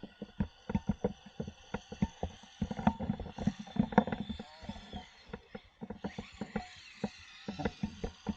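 RC Slash truck running on hard 3D-printed plastic drift tires: rapid, irregular clicking and clattering as the tires skid over the surface, with a faint steady high whine and a few brief squeals.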